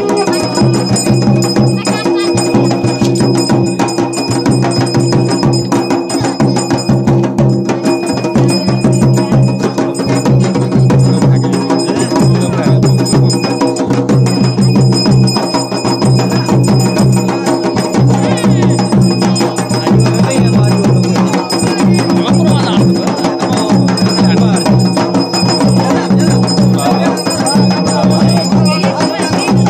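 Traditional Uttarakhandi jagar music: continuous fast drumming with bells ringing over it.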